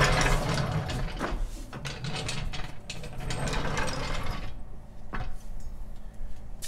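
Steel floor jack rattling and clicking as it is handled just after lowering the car, a busy run of metal clicks that dies away after about four and a half seconds, then a single sharp click.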